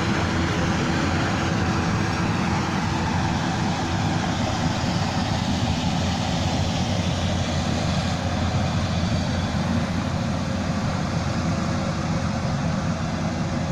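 Rice combine harvester's engine running steadily, a constant drone with a low hum.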